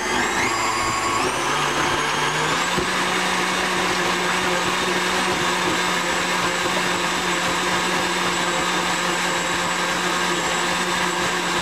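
KitchenAid tilt-head stand mixer motor running, beating chocolate pudding mix into evaporated milk. Its whine steps up in speed twice in the first couple of seconds, then holds steady.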